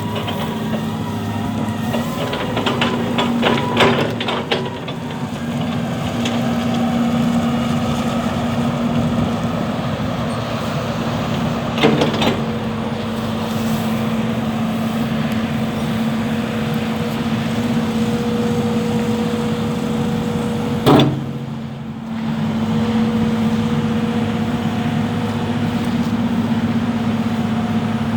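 Isuzu diesel engine of a 2008 JCB JS175W wheeled excavator running steadily, with a cluster of clicks and knocks in the first few seconds and sharp clanks about 12 and 21 seconds in. The engine sound dips briefly just after the second clank, then picks up again.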